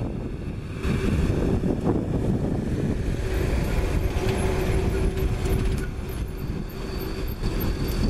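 Light diesel dump trucks driving past on a dirt road, their engines running with a steady low rumble.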